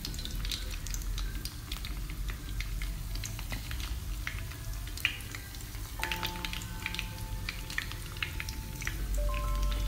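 Hot oil sizzling and crackling around battered cassava slices frying in a pan, the slices coated in a turmeric spice paste and cornstarch. From about six seconds in, soft background music with held notes plays over it.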